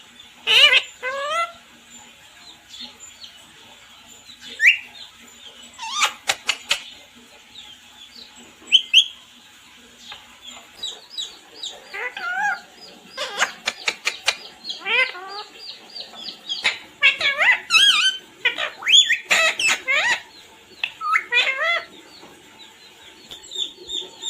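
Parrot chirping and calling: a run of short, sharp chirps and squawks, scattered at first and then coming in quick clusters through the second half.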